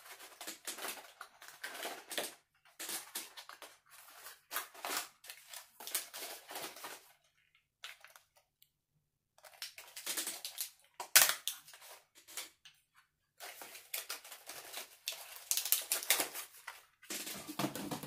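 Cardboard box and wrapping of tattoo cartridge needles being opened and handled: irregular crinkling and tearing in bursts with short pauses, and one sharp click about eleven seconds in.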